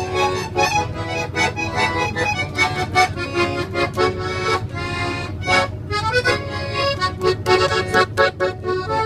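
Instrumental music: an instrument playing rhythmic chords and a melody, with no singing.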